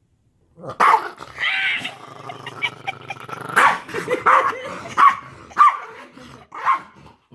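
Pet dog growling and barking: a sharp bark about a second in, a low growl, then several more sharp barks.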